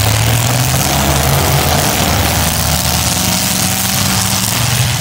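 Several demolition derby cars' V8 engines running hard under load, their pitch rising for a stretch near the middle.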